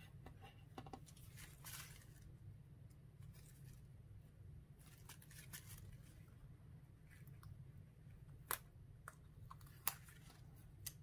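Faint handling noise of a paper card and clear tape being pressed and folded along its edge. Scattered short rustles and a couple of sharp clicks play over a low steady hum.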